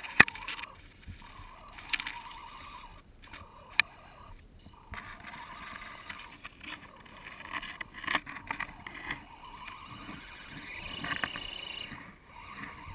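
Radio-controlled scale crawler truck wading through shallow water, its wheels churning and splashing steadily, with a few sharp knocks, the loudest just after the start.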